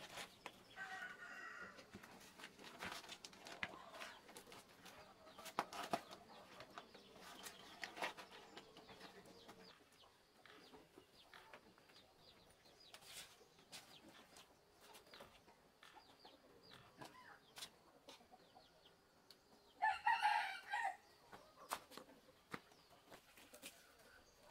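A rooster crows once, about a second long, roughly twenty seconds in. Before it there is faint rustling and scattered light clicks.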